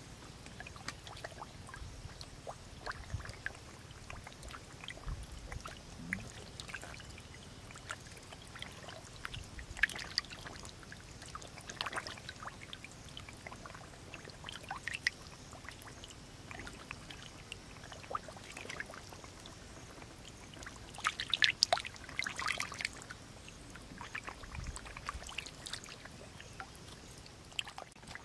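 Shallow muddy water splashing and trickling as catfish stir in it, with scattered small splashes and a louder cluster of them about 21 seconds in.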